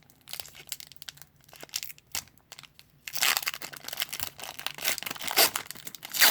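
Wrapper of a 2018 Prizm football card pack being handled with light crinkles, then from about three seconds in torn open with louder, continuous tearing and crinkling.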